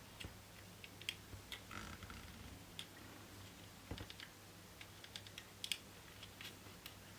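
Scattered light clicks and taps of hard plastic model-kit parts being handled and pressed together, faint and at irregular intervals, over a low steady hum.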